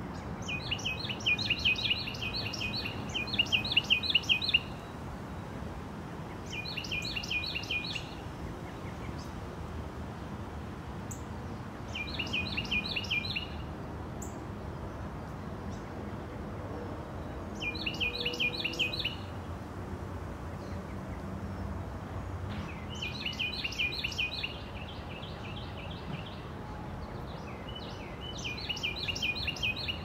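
A songbird singing bouts of rapid, repeated trilled notes, about six phrases of one to four seconds, with gaps of a few seconds between them, over steady faint background noise.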